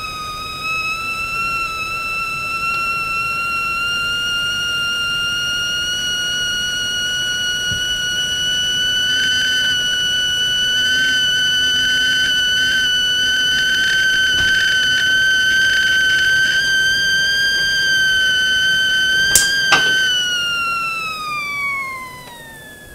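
Whistling tea kettle at the boil: a loud, high whistle whose pitch creeps slowly upward. About nineteen seconds in there are two sharp clicks, then the whistle slides down in pitch and fades away near the end.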